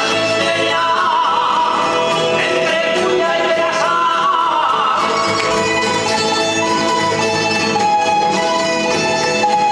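Live jota music played by a rondalla of guitars and other plucked string instruments; a voice sings an ornamented, wavering line over the strings for about the first half, then the strings carry on alone.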